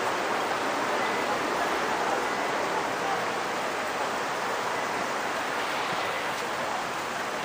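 Steady, even outdoor ambient noise of a busy waterfront, with no single distinct sound standing out.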